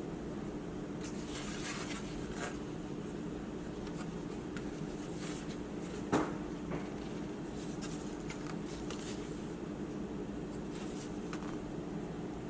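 Light scrapes and small clicks from hands handling laptop parts and tools, with a single sharper knock about six seconds in, over a steady low hum.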